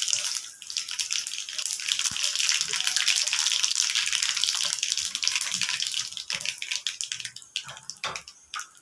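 Whole spices and curry leaves sizzling and crackling in hot ghee in a frying pan: a tadka being tempered. The sizzle is strongest in the middle and dies down about six seconds in to a few scattered crackles.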